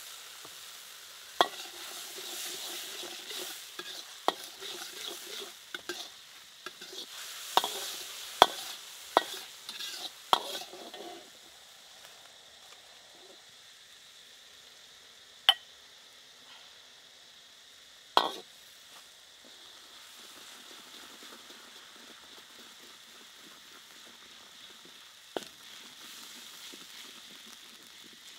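Chopped garlic and chili sizzling in hot oil in a steel wok, with a metal ladle stirring, scraping and knocking against the pan. The sizzle is livelier, with many sharp pops and clicks, for about the first ten seconds, then settles to a fainter steady hiss broken by a few single sharp knocks.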